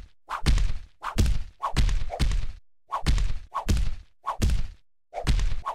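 A dog and a cat scuffling: a rapid series of short thumps and whacks, about two a second, as paws strike and bodies bump.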